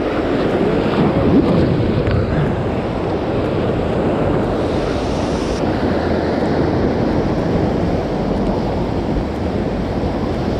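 Whitewater rapids rushing around an inflatable raft: a steady, unbroken roar of churning river water.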